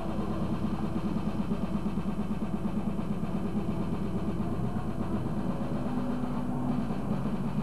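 Live rap-thrash band playing a fast, chugging heavy riff, with a steady low hum under it.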